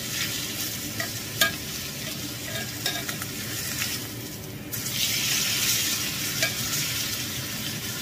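Wild boar steak sizzling in margarine and oil in a cast-iron skillet, with metal tongs clicking against the pan a few times. The sizzle jumps louder about five seconds in, as the meat is moved in the hot fat.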